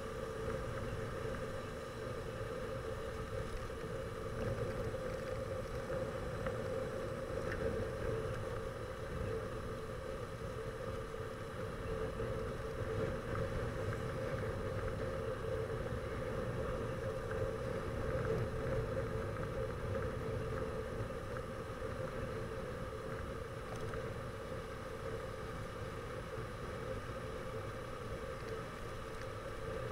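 Steady engine and road noise from inside a moving vehicle at cruising speed, with a constant hum and no marked changes.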